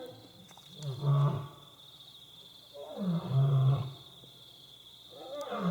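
Lionesses roaring at close range: two long, deep roars about a second in and about three seconds in, with a third starting near the end.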